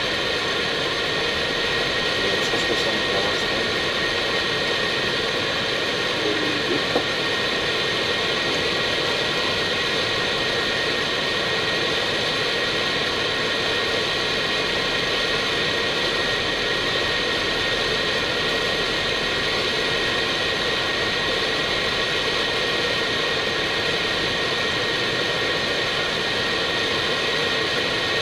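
Steady cockpit noise of an Airbus A319 on approach: airflow and jet engine noise as an even hiss, with several steady high tones over it.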